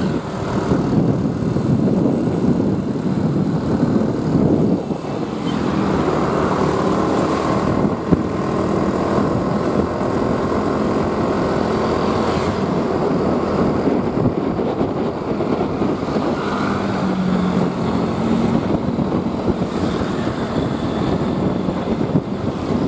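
Steady noise of a motor vehicle under way on the road, engine and road noise rising and falling a little.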